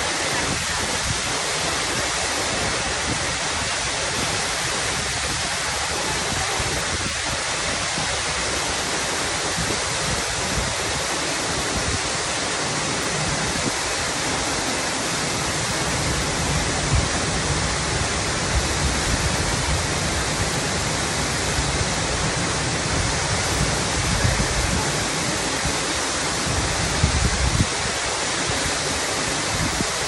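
Waterfall pouring into a rocky pool: a steady, dense rush of falling water. In the second half a low rumble rises under it, with a few brief bumps.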